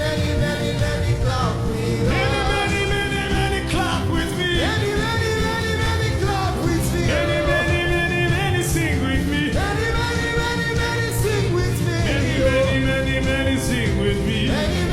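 Worship chant music: held, wavering sung phrases of about two seconds each, with no words the recogniser could catch, over a steady full backing band. Short bright strikes ring out every few seconds.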